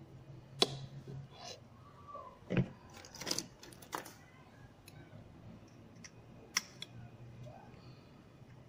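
Handful of sharp clicks and light knocks as wire connectors are handled and fitted onto the metal terminal tabs of a replacement woofer, about six separate ones, the sharpest just after the start and about two-thirds through. A faint low hum sits underneath.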